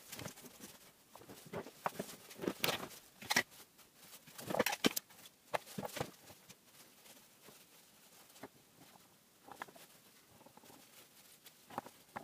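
Small 3D-printed plastic parts of a toy car being handled on a tabletop: scattered clicks, taps and rustles, busiest in the first five seconds.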